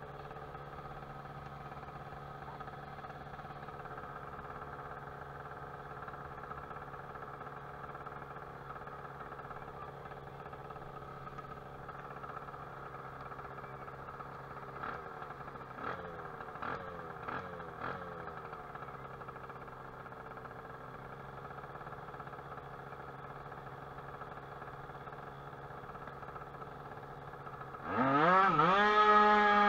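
Tuned two-stroke scooter engine (Baotian Falcon 50R with a Stage6 Racing 23 hp high-end setup) idling steadily, with a few quick throttle blips about halfway through. Near the end it revs up hard and much louder, pitch climbing, as the scooter pulls away. The owner says it is running a bit rich in the heat.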